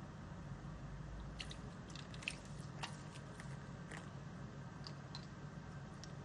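Irregular small clicks and crunches of ice in an African grey parrot's ice bath, over a steady low hum.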